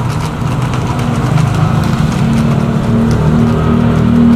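A motor vehicle engine running with a steady low hum, gradually getting louder.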